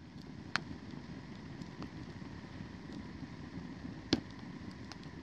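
Wood campfire burning: a steady rush of flames with sharp crackles and pops of the burning wood, the loudest pop about four seconds in.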